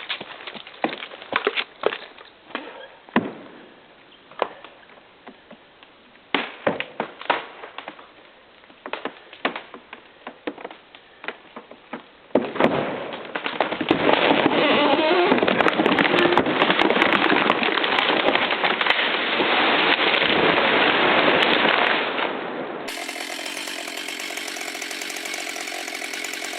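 Falling tree's wood cracking and splitting in a long series of sharp snaps, then about ten seconds of loud continuous noise as it comes down. After a sudden change about 23 seconds in, a chainsaw running steadily at one pitch.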